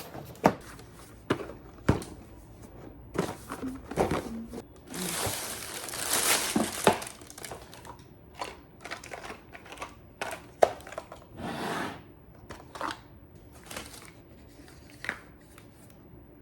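Handling noises: scattered knocks and clicks with crinkling, and a longer rustle from about five to seven seconds in.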